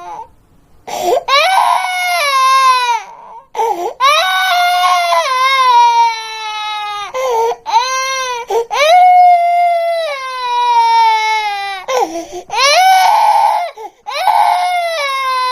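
High-pitched crying sound effect: a series of about six long wailing cries, each sliding down in pitch, broken by short sharp gasps for breath.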